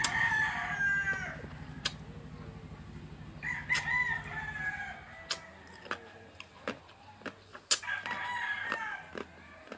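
A rooster crowing three times, each crow lasting about a second. Sharp crunches of ice being chewed come through the second half, and a low hum stops about halfway.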